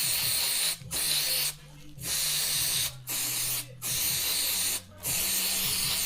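Aerosol cleaner can sprayed in a series of short bursts: six hissing blasts of about half a second to a second and a half each, with brief pauses between.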